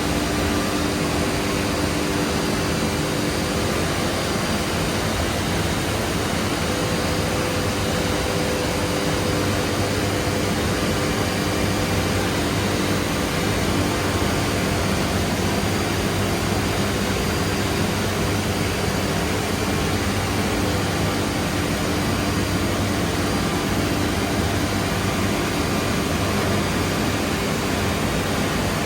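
Biesse Rover K CNC router running steadily: a loud, even rushing noise with a few faint steady hums underneath, unchanging throughout.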